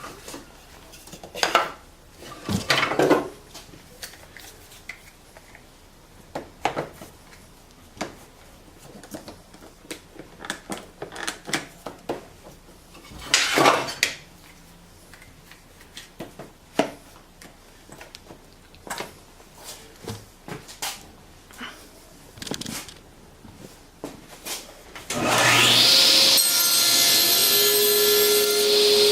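Scattered knocks and scrapes of wood and metal as the tenon jig is handled and set. About 25 seconds in, a table saw switches on, its motor spinning up with a rising whine and then running steadily.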